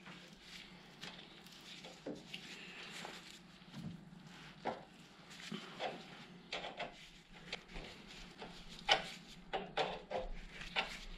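Faint, irregular clicks and light knocks from an adjustable spanner working an intermediate tap by hand, cutting a thread into a drilled hole in a motorcycle brake caliper.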